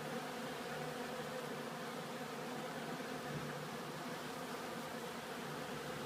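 Many western honeybees buzzing as they fly in and out at the hive entrance, a steady hum.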